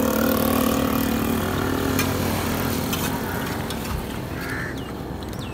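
A small motorcycle engine running steadily on the road, fading away over the last couple of seconds.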